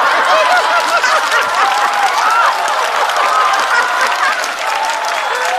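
Studio audience laughing and applauding after a punchline, with many voices laughing over a dense patter of clapping.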